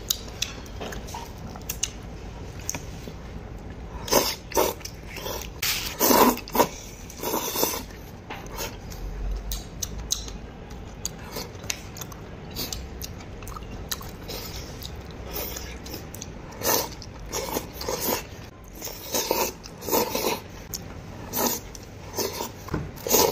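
A person eating noodles in spicy broth with chopsticks: irregular loud slurps as mouthfuls of noodles are sucked in, with quieter chewing between them, the slurps coming thickest about four to eight seconds in and again near the end.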